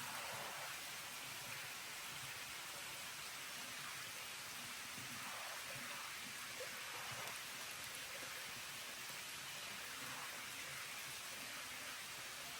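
Steady hiss of water, running evenly with no change in level.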